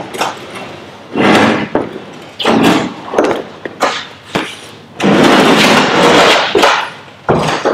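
Aluminium boat hull scraping and grinding across a concrete floor as it is dragged in a series of heaves, the longest scrape lasting about two seconds.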